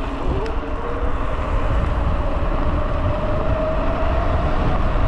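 Steady wind rush and road rumble on the microphone while riding a bicycle, heaviest in the low end, with a faint whine that slowly rises in pitch.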